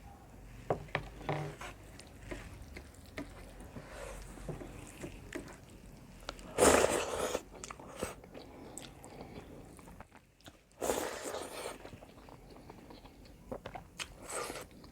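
Close-miked mukbang eating: chewing with small wet clicks of mouth and food, and two louder crunchy bites, one about halfway through and one near two-thirds of the way.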